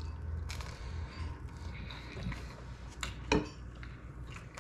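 A person biting into and chewing toasted bread topped with avocado, with a few light clicks and clinks and one sharper knock about three seconds in.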